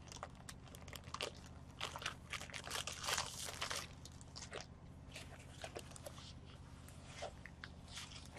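Faint, irregular crinkling of a thin clear plastic bag as it is slid off a rolled diamond painting canvas, busiest in the first few seconds, then sparser rustling as the canvas is handled and unrolled.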